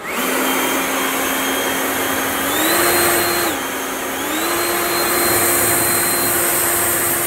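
Hart 40V cordless leaf blower with a brushless motor running: a steady motor whine over rushing air. It spins up at the start, rises in pitch about two and a half seconds in, drops back a second later, then rises again and holds.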